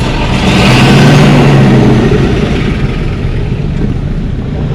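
Road traffic noise with a vehicle engine running. It swells louder from about half a second in and eases off after about two seconds.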